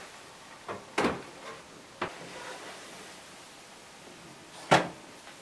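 Plastic clicks and knocks from LEGO building sections being lifted apart and handled: a few sharp clicks about a second in and at two seconds, and a louder knock near the end.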